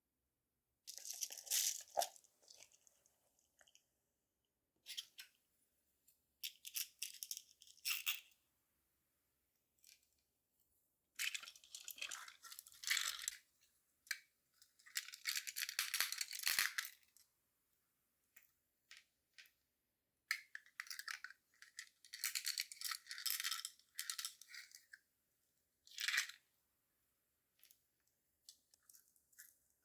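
Small hard jewelry pieces, gemstone chips and brass beads, rattling and clicking as they are handled. They come in several bursts of one to three seconds, with short quiet gaps between.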